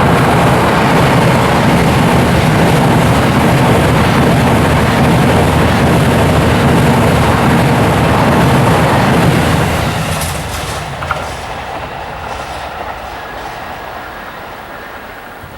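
JR East E353 series limited express electric train running past close by: loud and steady for about nine seconds, then fading away as it recedes.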